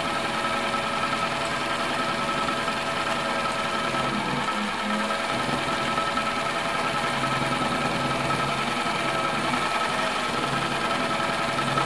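Elna Supermatic SU 62C sewing machine running steadily while stitching free-motion, with the feed dogs disengaged and the fabric moved by hand. The motor slows briefly about four seconds in, then picks back up.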